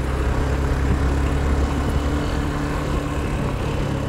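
A vehicle's engine running steadily at cruising speed, with tyre and road rumble from driving on an unpaved dirt-and-stone road.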